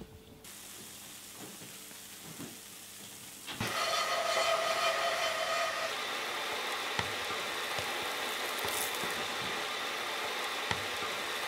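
Strips of black bread frying in butter in a pan, sizzling. The sizzle turns much louder about three and a half seconds in and then holds steady, with a few light clicks from the tongs turning the strips.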